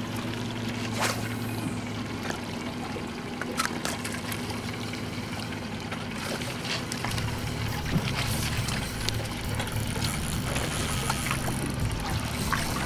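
Water lapping and splashing against the hull of a small drifting boat, with scattered small splashes over a steady low hum.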